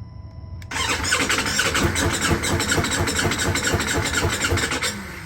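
Ducati Multistrada V4S's V4 engine being cranked by its starter, a fast even pulsing that starts suddenly and stops after about four seconds without the engine catching: the bike won't start.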